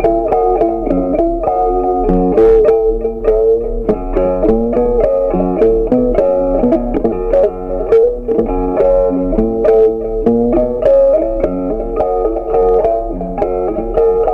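Background music: a plucked guitar melody over a bass line, with notes picked at a steady pace.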